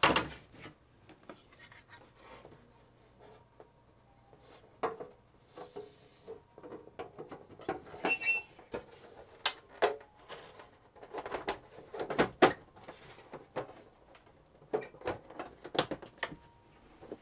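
Plastic casing of a 1990s Quantel-branded Wacom graphics tablet being handled and fitted back together, with irregular clicks and knocks and a few brief squeaks.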